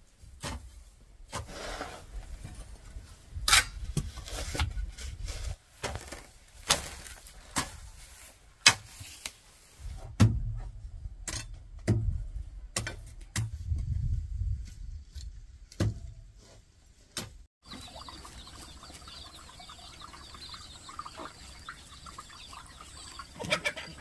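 Hand tools digging soil: a hoe and shovel chopping and scraping into dirt, an irregular string of sharp knocks with duller thuds between them. Then, after a sudden cut, fainter outdoor background with repeated high chirping from a hen and her chicks.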